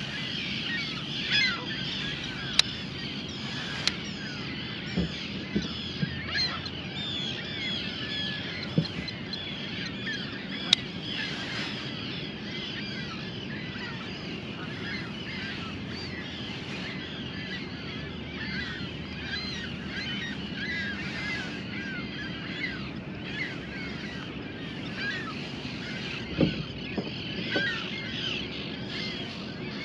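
A dense, continuous chorus of many birds calling, their short overlapping calls running on without a break, over a low steady hum. A few sharp clicks stand out early on.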